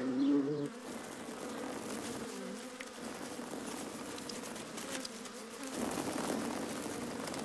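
Honeybees buzzing: the steady hum of many bees at the hive, a little louder for the first half-second and again about six seconds in.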